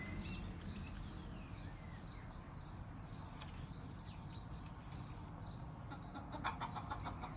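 Chicken making soft sounds, with a faint, high, short chirp repeating a few times a second. A quick run of sharp taps comes about six seconds in.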